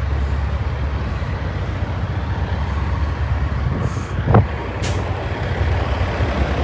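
Steady low rumble of a diesel semi truck idling, with a short hiss of air about five seconds in.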